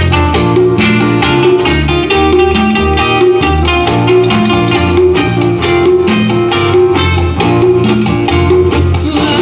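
Latin music led by plucked guitar over a moving bass line, with a steady beat. A bright shaker-like percussion layer comes in near the end.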